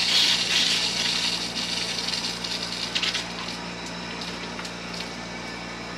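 Water and trapped air rushing and hissing through household water pipes as they are refilled and purged of air, fading over the first few seconds, with a brief spitting sputter about three seconds in.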